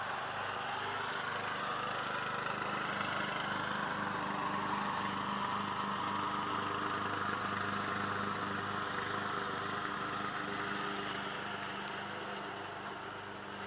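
Freshly rebuilt old Craftsman riding lawn mower running steadily while mowing, its engine holding a constant pitch; it grows a little louder as it comes closer and eases slightly near the end.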